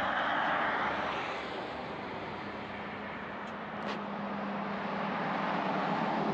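Wind and road rush of a Harley-Davidson motorcycle riding at speed, steady, with a low engine hum underneath; it swells a little near the end.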